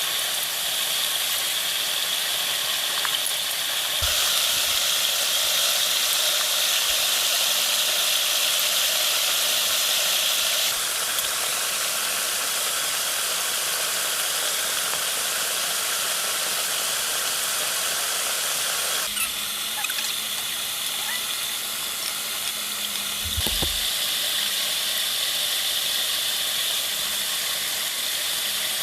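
Steady hiss of rain with a constant high-pitched ringing band above it, changing abruptly in level several times. A brief low thump comes about four seconds in and another near the end.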